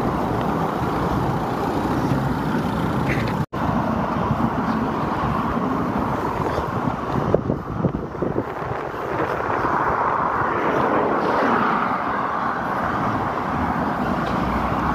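Steady motor-vehicle noise from a car and road traffic close by, cut by a split-second dropout about three and a half seconds in, with some uneven rumbling around eight seconds.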